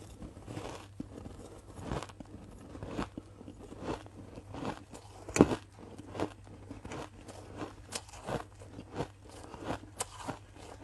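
Ice being bitten and chewed close to the microphone: a run of crisp crunches roughly once a second, with one much louder crunch about halfway through.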